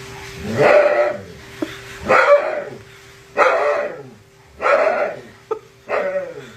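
A dog barking five times at an even pace, about one bark every second and a half, each bark dropping in pitch.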